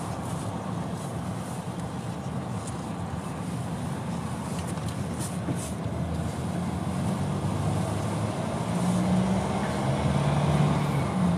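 Car interior noise while driving: a steady hum of engine and tyres on the road, growing a little louder near the end.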